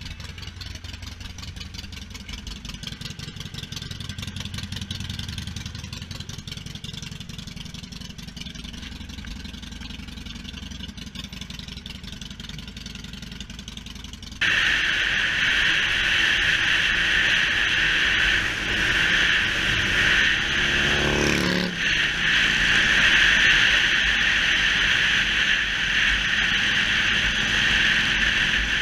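Motorcycle engines running at low revs, a low steady rumble. About halfway through it switches abruptly to loud wind rush over the microphone while riding on the road, with the engine underneath. About two-thirds through, one sound drops in pitch, like a vehicle going by.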